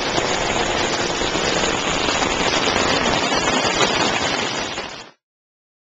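Heavy rain pouring onto pavement and standing water, with a shoe splashing through the water; the sound cuts off suddenly about five seconds in.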